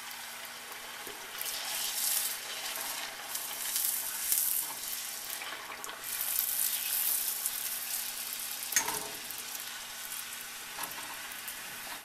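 Semolina puris deep-frying in hot oil: a steady sizzle that swells and eases as a slotted metal skimmer presses and turns them. There is a single sharp knock about nine seconds in.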